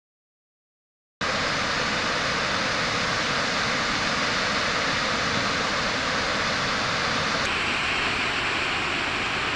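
Steady rush of a waterfall's falling water, cutting in abruptly about a second in after dead silence. Near the end its sound changes suddenly and turns brighter and hissier.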